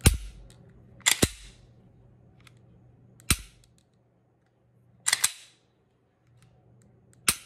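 A 9mm pistol, a Dagger slide on a Glock 19 Gen 3 frame, being function-checked by hand. Three single sharp clicks, the trigger being dry-fired, alternate with two quick double clacks of the slide being racked back and let go, about every two seconds.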